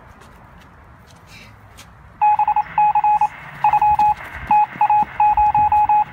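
A run of loud electronic beeps at one steady pitch, starting about two seconds in and coming in quick, irregular groups until the end.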